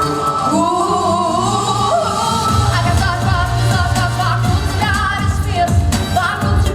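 A singer performing with wavering vibrato over a pop backing track with a steady bass line and beat, heard through a sound system during a sound check.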